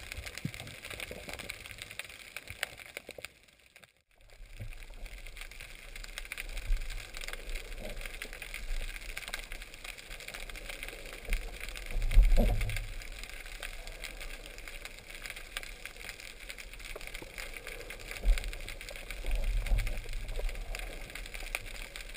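Underwater sound picked up by a camera in a waterproof housing: a steady watery hiss with low rumbling swells, the loudest about twelve seconds in and another run near the end. It drops out briefly about four seconds in.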